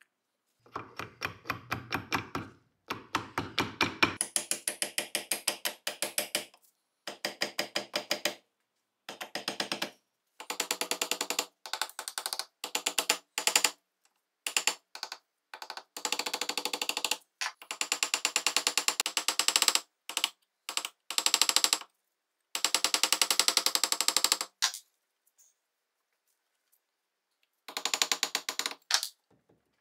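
Rapid metallic clicking and tapping in short bursts, several clicks a second, from tools working the seized, rusted barrel out of a Tokarev TT-30 pistol's slide held in a bench vise.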